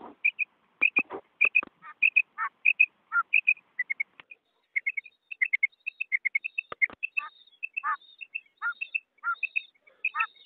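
Quail lure recording (karik) of male and female quail calling together: short, sharp chirps in quick pairs and triplets, mixed with lower, longer notes, repeated several times a second without a break. The calls are played to draw wild quail in for netting.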